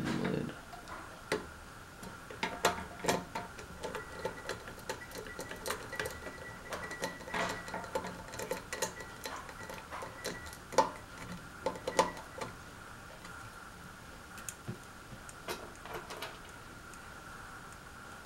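Irregular clicks and small metal taps of a screwdriver driving screws to fasten a ceiling fan blade to its blade arm. They come thickly for the first twelve seconds or so, then only now and then, over a faint steady high hum.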